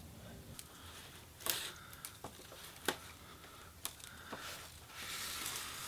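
Handling noises as a plastic side skirt is fitted to a car: a few sharp clicks and taps, with a rustle near the end.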